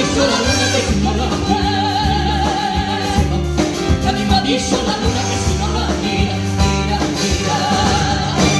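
Live copla duet: a man and a woman singing over a band with drums, with long held notes sung with wide vibrato about two seconds in and again near the end.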